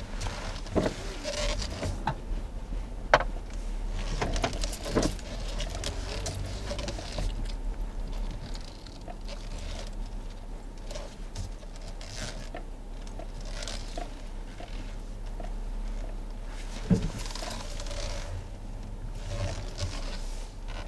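Inside a car: the steady low hum of the running car, with scattered clicks and rustles and two sharper knocks, about three seconds in and again around seventeen seconds.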